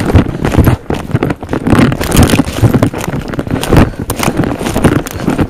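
Hurried footsteps crashing through dry brush and fallen branches: irregular crunching, rustling and twig snapping, mixed with knocks and thuds from the jostled camera.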